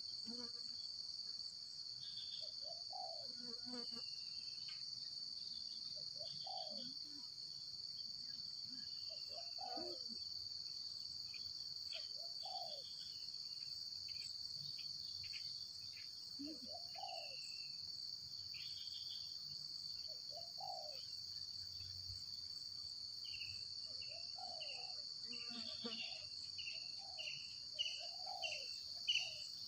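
Steady high-pitched insect drone, with short low calls about every three seconds and quick high chirps that come thicker near the end.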